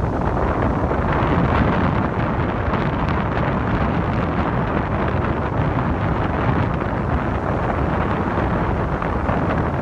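Gale-force wind buffeting the microphone: a loud, steady rushing roar.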